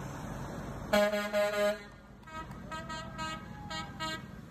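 Tow truck horns honking: one loud blast about a second in, then a string of shorter, fainter toots, about two a second.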